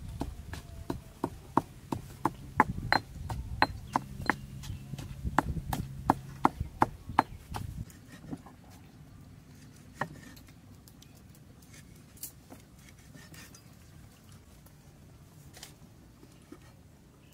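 A heavy knife hacking repeatedly into a green coconut, about three sharp strikes a second. About eight seconds in the strikes stop, and only a few light knife cuts on a wooden chopping board follow.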